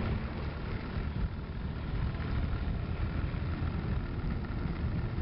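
Honda Forza MF08 scooter riding along at a steady pace: its engine running under a steady rush of wind over the onboard microphone.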